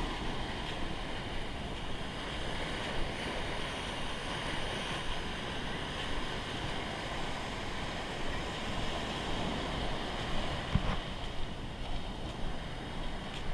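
Small sea waves breaking and washing up a sandy shore in a steady surf wash.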